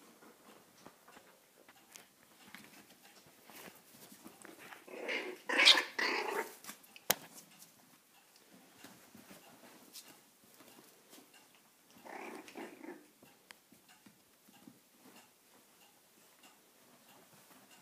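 Five-week-old puppies growling in play: a loud bout about five seconds in and a shorter, quieter one around twelve seconds, with a single sharp click just after the first bout and faint scuffling in between.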